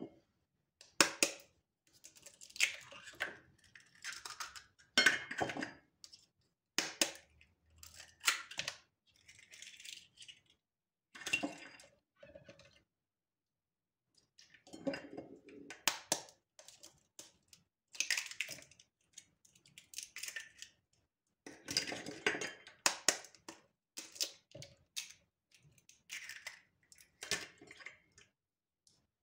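Kitchen utensils and dishes being handled: irregular clinks, knocks and short scrapes, coming in bursts with brief silent gaps between them.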